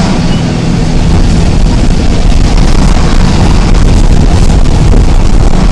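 Isuzu MT133 bus diesel engine running steadily at speed, a loud low drone mixed with wind and road rush, growing a little louder about a second in.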